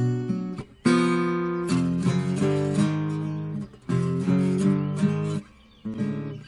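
Acoustic guitar played fingerstyle: chords plucked slowly and left to ring, with short breaks between phrases, the longest about half a second near the end.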